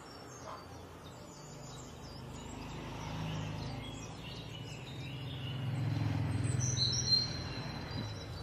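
Background ambience: birds chirping, with a low hum that swells through the middle and fades near the end.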